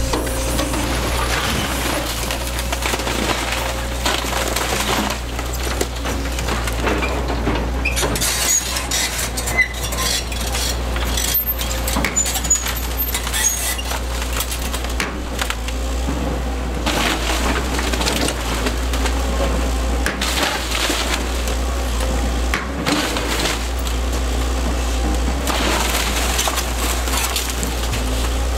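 Link-Belt 160 LX tracked excavator's diesel engine running steadily while its bucket tears into a house, with wood splintering and debris and glass crashing and clattering. The breaking is busiest from about eight to fourteen seconds in.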